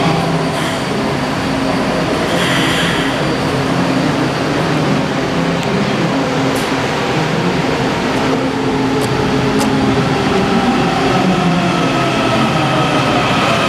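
Washington Metro train running in an underground station: a steady rumble with a whine that shifts in pitch in the last few seconds.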